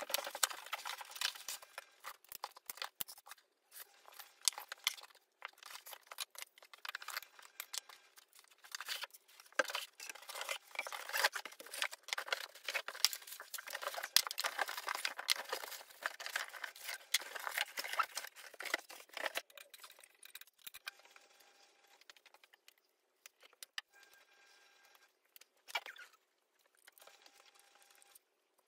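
Flat-pack furniture unboxing and assembly sounds played back greatly sped up: a dense run of high-pitched rustling, crackling and clicking of packaging and parts, thinning out to scattered clicks after about twenty seconds.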